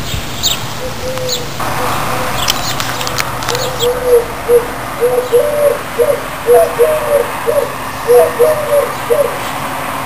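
Doves cooing: a run of short, low coo notes, some bending up in pitch, starting about a second in and repeating until near the end. A few high chirps of small birds are heard in the first few seconds.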